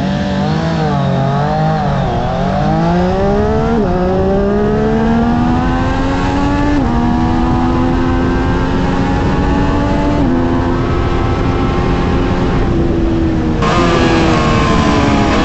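Triumph Street Triple RS three-cylinder engine accelerating hard from a launch: the revs waver over the first two seconds, then climb with three upshifts about three seconds apart, each a short drop in pitch. Near the end the throttle closes and the revs fall away under a louder hiss.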